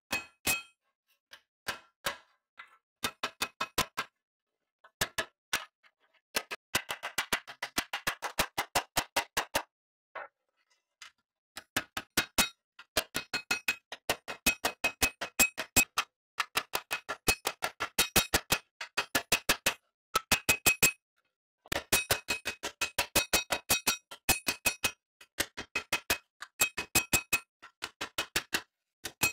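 Small hammer striking a rusty steel shovel blade laid on a steel bar, in runs of rapid, sharp metallic blows with a short ring and brief pauses between runs. The blows knock loose flakes of rust scale.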